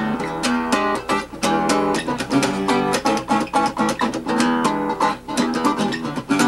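Nylon-string classical guitar played fingerstyle: a quick, steady run of plucked notes and chords.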